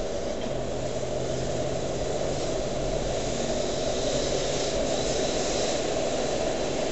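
Land Rover Discovery V8 driving steadily, heard from inside the cabin: an even engine drone with tyre and road noise on a wet road.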